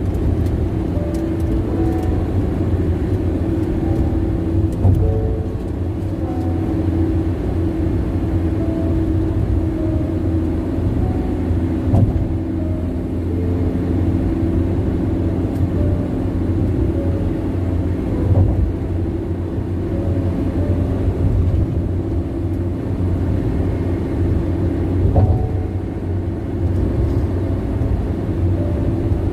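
Loud tyre and road noise of a car cruising on a highway: a steady low rumble with faint steady tones above it, broken by three brief thumps spread through it. The noise is the complaint itself, tyres running loud.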